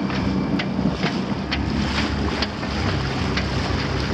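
Wind buffeting the microphone over water rushing and splashing along the hull of a small sailboat under way, with a low steady hum underneath and scattered short clicks or slaps.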